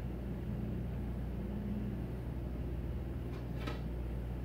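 Steady low hum of indoor background machinery, with a faint short click about three and a half seconds in.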